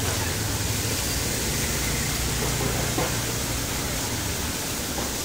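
Floodwater rushing steadily through a drain grate clogged with rubbish, a continuous wash of noise with a low rumble.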